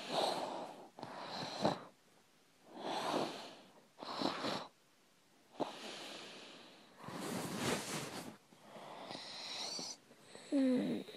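A person breathing heavily and wheezily right against the microphone, about six noisy breaths with pauses between them, and a single click about halfway through. Near the end comes a short voiced sound.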